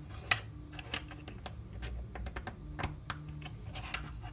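Irregular light clicks and clacks of small 3D-printed plastic X-carriage parts being handled and fitted together by hand. The sharpest click comes about a third of a second in.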